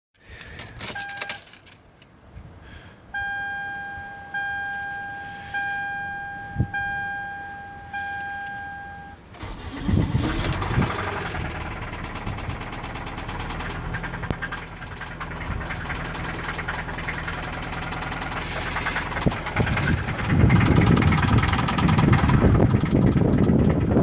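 A car's warning chime dings five times, then a 2008 Toyota Camry's engine cranks and catches about nine seconds in and runs at idle with a fast knocking tick. The engine gets louder about twenty seconds in.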